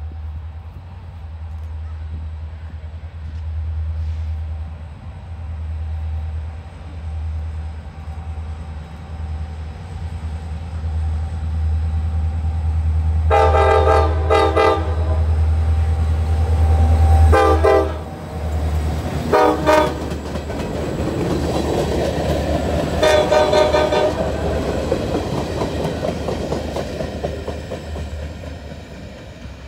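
Norfolk Southern SD40-2 diesel locomotive approaching and passing with its engine rumbling, sounding its Nathan K5LA five-chime horn four times about halfway through: a long blast, two short ones, then a long one. Freight cars then roll by with wheel noise that fades near the end.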